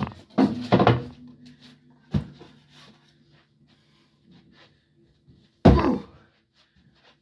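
A few thuds and knocks, the loudest near the end as a plush toy is slammed down onto a mattress.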